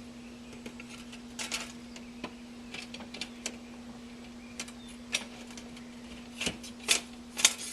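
Chafer stand parts clicking and clinking as they are slid and fitted together by hand. The knocks are sparse at first and come louder and closer together near the end, over a steady low hum.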